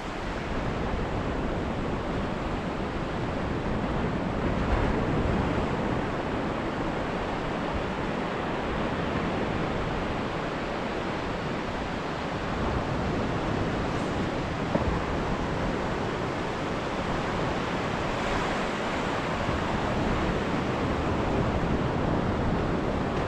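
Surf washing in on a flat sandy beach, a steady rushing noise, with wind on the microphone.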